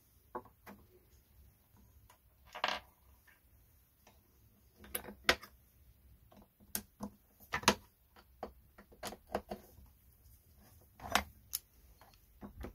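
Plastic chainsaw housing parts and screws being handled on a workbench: a scattering of light clicks and knocks, with a short scrape about two and a half seconds in, as a cover is fitted and its screws are driven with a screwdriver.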